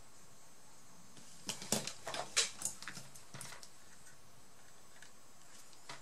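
A short flurry of small clicks and scrapes from about a second and a half in, lasting about two seconds: hands handling metal hand tools and a laptop motherboard on the bench.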